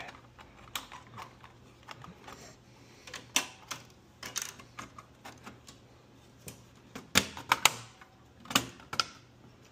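Irregular sharp clicks and taps of a Taco SR502-4 switching relay circuit board being handled and pressed into place in a sheet-metal control enclosure, with a quick cluster of louder clicks near the end.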